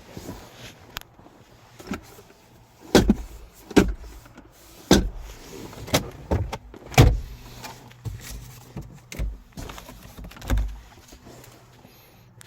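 A string of knocks and clunks at irregular intervals, with heavy thuds about three, four, five and seven seconds in and again near the end.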